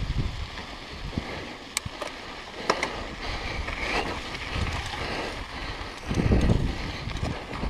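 Downhill mountain bike rolling fast over a dry dirt and loose-rock trail, with wind buffeting the action camera's microphone. A few sharp clicks and rattles come from the bike, and a louder rumble swells about six seconds in.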